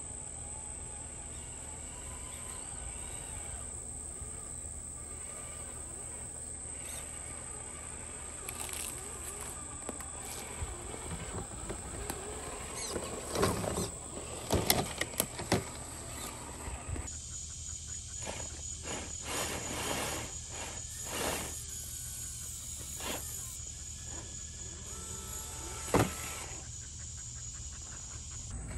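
A steady high-pitched insect drone, with intermittent clicks and knocks as a Traxxas TRX-4 Bronco RC crawler climbs over tree roots and dirt. The knocks are loudest around the middle, with one sharp knock near the end.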